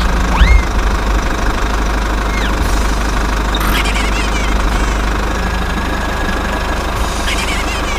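Engine running steadily with a low, even rumble, with a few short rising whistle-like chirps over it.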